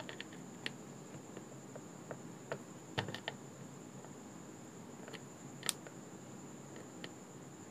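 A few small clicks and scrapes of multimeter probe tips shifting on the solder pads of a circuit board, over a faint, steady high-pitched whine.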